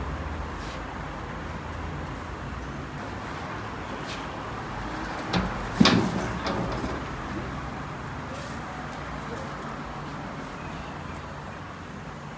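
Steady background noise of a busy kitchen, broken a little past halfway by two sharp knocks about half a second apart, the second the loudest, as the heavy clay-sealed lid of a tandoor is lifted off.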